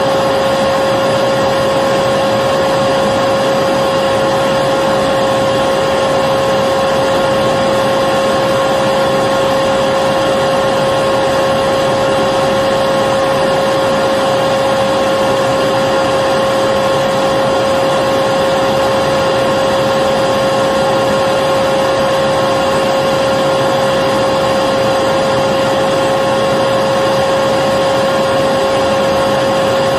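Electric vacuum cleaner running steadily, a constant whooshing hum with a high motor whine that does not change.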